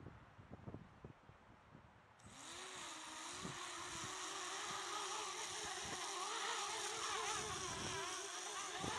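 Eachine Falcon 180 quadcopter's motors spinning up a couple of seconds in, then buzzing with a pitch that wavers up and down as the throttle changes and the quad fights the wind. Before that there are only a few soft knocks.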